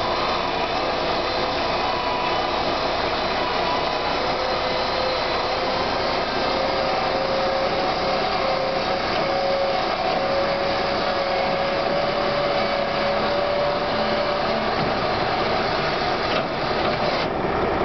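Electric gate drive motor on a brick truck's tray whining steadily as it swings the side gate up shut. Its pitch creeps slightly upward and it dies away about fifteen seconds in, over a truck engine idling.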